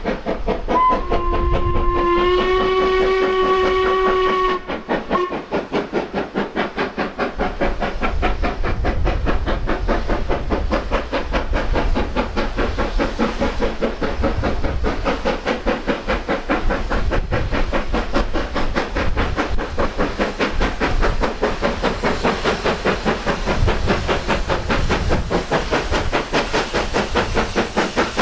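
LMS Ivatt Class 2MT 2-6-0 steam locomotive 46447 sounds a two-note whistle chord for about three and a half seconds, starting about a second in. Under it and afterwards comes a steady, rapid beat of exhaust chuffs as the engine works a train up the line.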